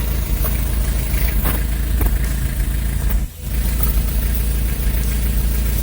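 Nissan Urvan diesel engine idling steadily, with one brief drop in level about three seconds in. The idle holds steady after its clogged fuel filter and water separator were cleaned.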